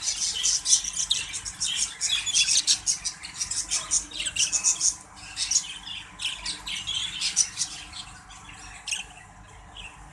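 Exhibition budgerigars squawking and chattering in quick, shrill calls, thinning out near the end.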